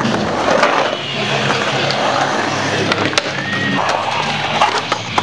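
Skateboard wheels rolling and carving across a concrete bowl, with a sharp knock about three seconds in.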